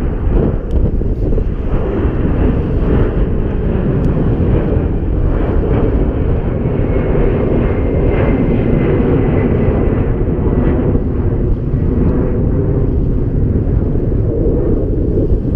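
Jet airliner flying low overhead: a steady, loud rumble, with a faint high whine that falls slightly in pitch midway through, over wind buffeting the microphone.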